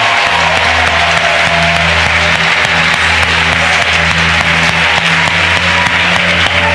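Congregation applauding and cheering in acclamation, with music and a held low bass note underneath.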